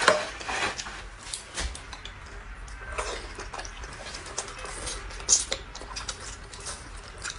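Eating sounds: scattered clicks and light knocks of utensils against dishes. Louder knocks come near the start and about five seconds in.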